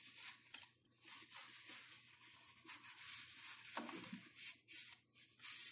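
Paper towel rubbing on the metal body of a sink basket strainer, wiping off old plumber's putty: a faint, irregular scuffing.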